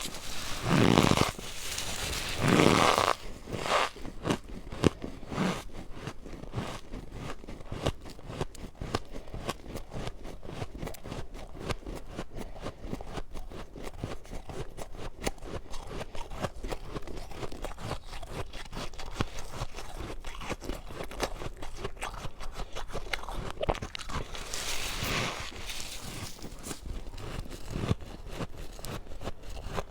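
Powdery freezer frost being bitten and chewed. A few loud crunching bites come in the first three seconds, then a long run of fine, fast crackling as the soft ice is chewed, with another loud bite about 25 seconds in.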